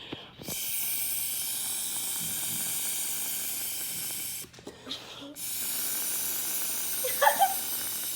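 Air blown through a drinking straw into a ball of glue slime to inflate a bubble: two long, steady hissing blows with a short break for breath between them.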